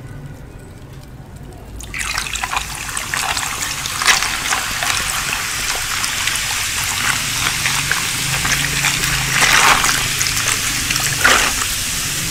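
Cola poured from a plastic bottle onto a bowl of ice cubes, the pour starting about two seconds in: a steady splashing hiss packed with many small pops and crackles as the fizzy drink hits the ice.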